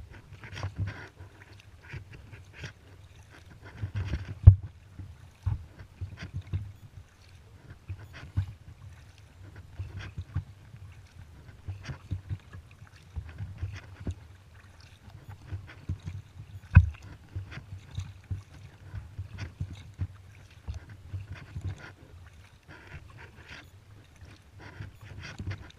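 Kayak paddling: repeated paddle strokes splashing in the water, with short clicks and knocks of the paddle against the kayak. Two much louder knocks come about four and a half seconds in and near seventeen seconds.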